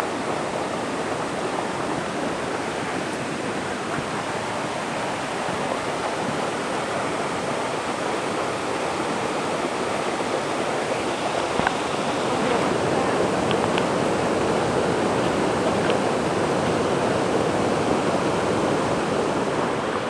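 Steady rush of stream water pouring over bare rock slabs at the lip of a waterfall. It grows a little louder about midway through.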